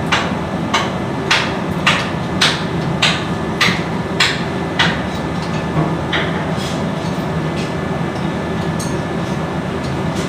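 Hammer blows on metal in a steady rhythm, about one every 0.6 seconds, stopping about five seconds in, with one more strike a second later. Running machinery hums steadily underneath.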